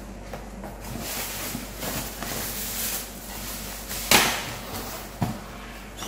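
Cardboard box flaps being bent open and rubbed, a scraping, rustling sound, with a sharp slap of cardboard about four seconds in and a smaller knock about a second later.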